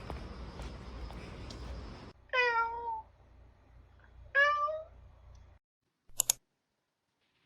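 A domestic cat meowing twice, about two seconds apart: the first call slides slightly down in pitch and the second slightly up. Before the meows there is a steady background hiss with faint taps, and a short, sharp click comes about six seconds in.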